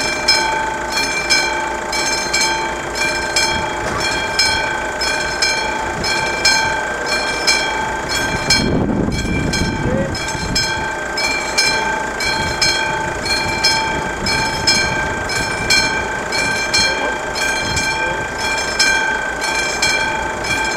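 Classic mechanical warning bell of a Czech level crossing ringing with the flashing VÚD lights, struck in a steady repeating rhythm with its ring carrying between strokes: the crossing is closed for an approaching train. A brief low rumble passes about nine seconds in.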